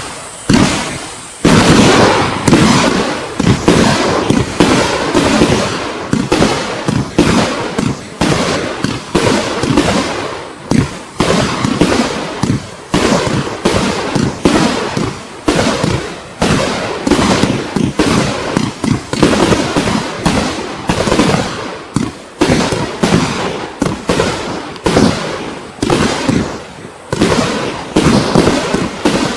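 Klasek Dum Bum 49-shot 30mm firework cake firing its silver-mines-to-reports sequence: a long, loud string of sharp shots, about one to two a second, each fading away before the next.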